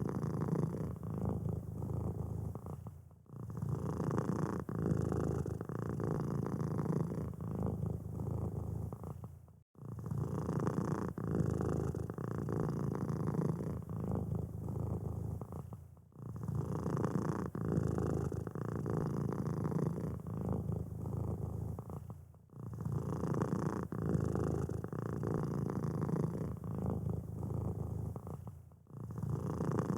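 Domestic cat purring steadily, a close low rumble with a brief break about every six seconds.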